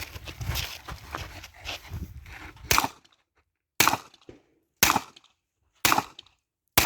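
Handgun shots fired at a steady pace, about one a second, five in a row starting almost three seconds in, each a sharp crack. Before them comes a stretch of rustling, rumbling handling noise.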